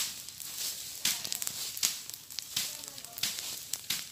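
Bush fire of dry leaves and cut fronds burning on cleared farmland: a steady crackling hiss with sharp, irregular pops.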